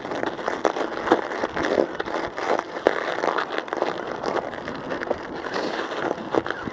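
Studded tires rolling over pocked ice and crusty snow: a steady crunching hiss broken by many irregular clicks and knocks.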